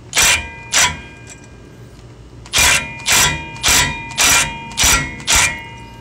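Small cordless impact gun with a flathead bit hammering in short bursts on a seized, stripped rotor retaining screw. There are two quick bursts, a pause, then six more bursts about half a second apart.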